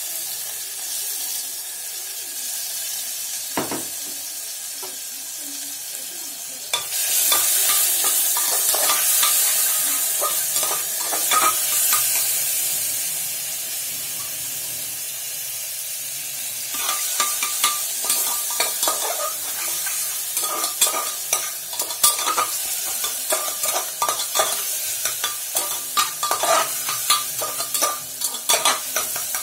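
Food sizzling as it fries in a pressure-cooker pot while a metal spatula stirs and scrapes against the pot. The sizzle grows louder about seven seconds in, and quick scrapes and taps of the spatula follow from about halfway through.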